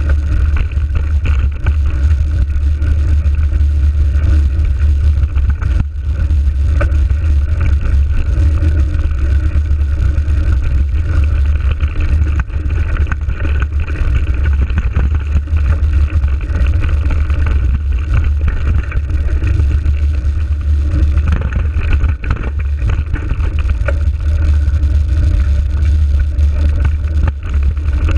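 Steady low rumble of wind buffeting and trail vibration on a bike-mounted action camera as a mountain bike rolls along a dirt trail.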